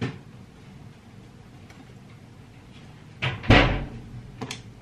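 Kitchen knocks and thumps: a sharp knock at the start, a louder pair of thumps with a deep low end about three seconds in, and a lighter knock near the end.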